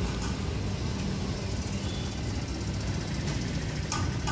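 Roadside traffic: a steady low rumble of passing motor vehicles, with a few light clicks near the end.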